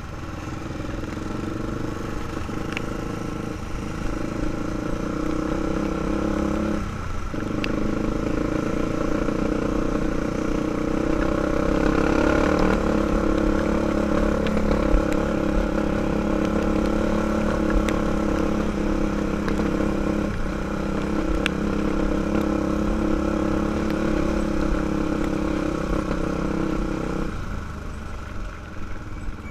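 Honda 400EX ATV's single-cylinder four-stroke engine running under steady throttle, with tyres crunching over loose gravel. The engine note dips briefly twice a few seconds in, and near the end the throttle closes and the engine note falls away.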